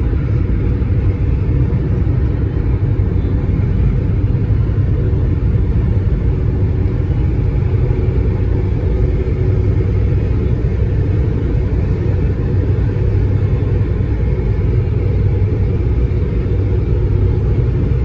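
Steady low rumble of a car's engine and tyres on the road, heard from inside the moving car's cabin at motorway speed.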